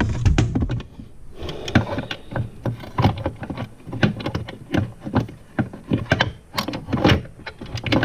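Irregular metal clicks and knocks from a snowmobile chaincase being put back together by hand, as the chain, gears and side cover knock against each other while the cover is worked into place.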